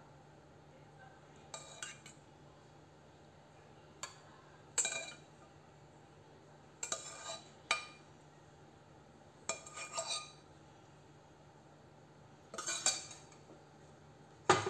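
Steel spoon clinking and scraping against a steel bowl in short bursts every second or two as sugar is spooned out, over a faint steady hum.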